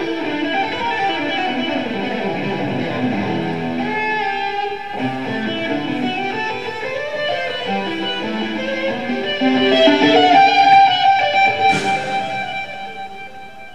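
Background music led by guitar, with a run of plucked notes; it fades down near the end.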